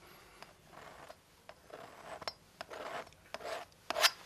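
Palette knife scraping and dabbing paint onto a canvas: a run of short scraping strokes with a few light taps, the strongest stroke near the end.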